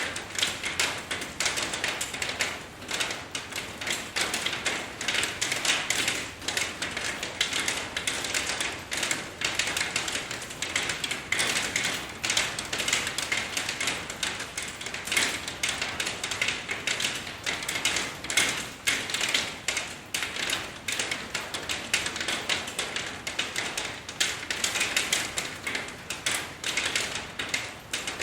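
Steady rain: a dense, irregular patter of drops tapping, with a constant hiss beneath.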